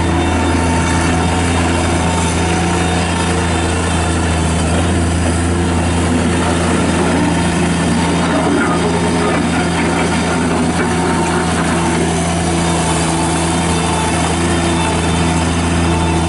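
Kubota diesel engine of a Bobcat MT55 mini track loader running at a steady, even speed.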